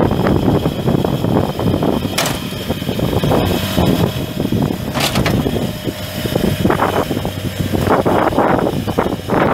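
Kohler diesel engine of a Toro Groundsmaster 455D wide-area mower running steadily, with two sharp clicks about two and five seconds in.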